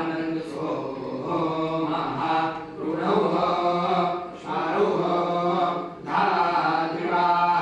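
Several men chanting a scripture recitation (parayana) together, in continuous phrases with short breaks for breath.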